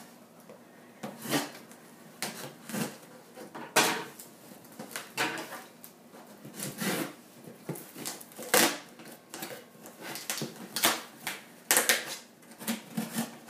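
Scissors cutting and scraping at packing tape on a cardboard shipping box, with irregular rasps and knocks of the cardboard being handled.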